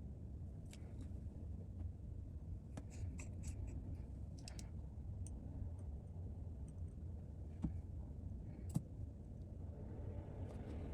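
Light, scattered clicks and taps of small tools and parts being handled during an iPad screen reassembly, with a cluster of them a few seconds in and two sharper clicks later on. A steady low hum runs underneath.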